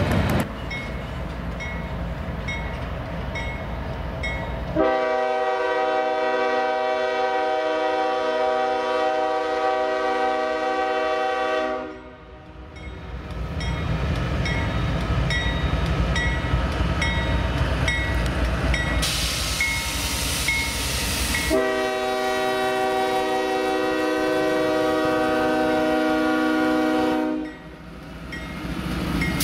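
Locomotive air horn sounding two long, steady chord blasts, the first about seven seconds and the second about six, over the rumble of a train. A bell dings at an even pace until about two thirds of the way in.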